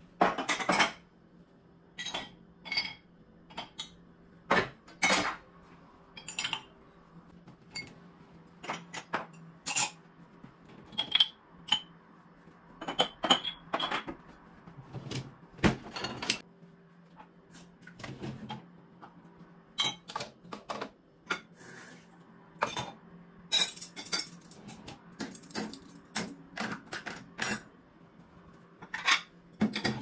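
Dishes, glasses and cutlery clinking and knocking against each other and the dishwasher racks as a dishwasher is unloaded by hand, in irregular clatters throughout.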